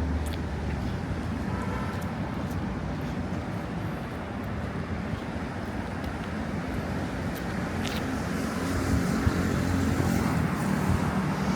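Road traffic on a busy city street: a steady hum of passing cars and engines, growing a little louder over the last few seconds.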